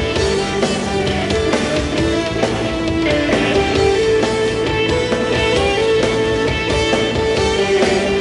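A rock band playing live: an instrumental passage with sustained electric guitar lines over bass and drums.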